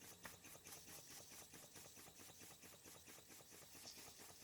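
Gaselan DM2 electrically heated model steam engine running quietly on low steam pressure, a faint, fast, even ticking rhythm from its running gear.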